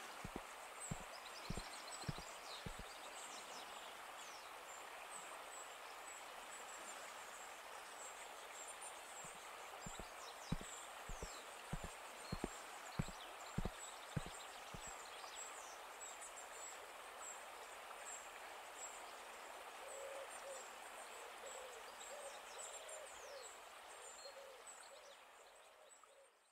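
Outdoor garden ambience: a steady background hiss with many small birds chirping high and thin, and soft footsteps in the first few seconds and again about ten to fifteen seconds in. About twenty seconds in a low, repeated bird call joins, and the sound fades out at the end.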